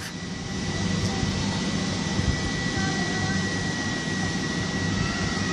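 Class 90 electric-locomotive-hauled passenger train standing at the platform just before departure, its equipment and cooling fans running with a steady whirr. A constant high whine and a low hum run underneath.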